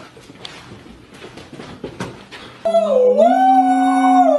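Faint rustling with a few light clicks, then a sudden, loud, long howl that steps up in pitch, holds steady and drops at the very end.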